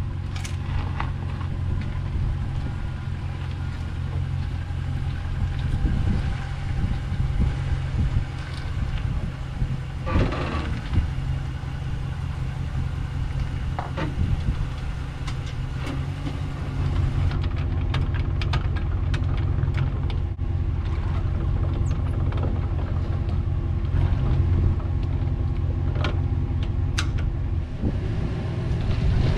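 An engine idling steadily, with scattered knocks and clanks in the second half.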